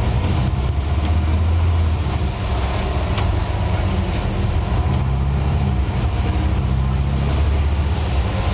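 Scania N94UD OmniDekka double-decker bus's diesel engine pulling under way, heard from the upper deck. It is a low drone that swells about a second in and again near the end, with a faint steady whine above it.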